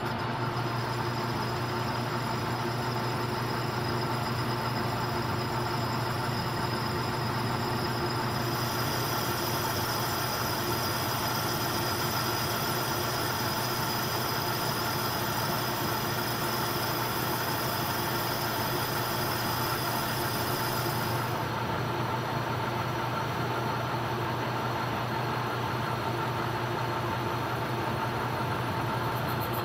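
Metal lathe running steadily while turning a bushing from 660 bearing bronze: an even machine hum holding a few fixed tones, with the high hiss changing about 8 seconds in and again about 21 seconds in.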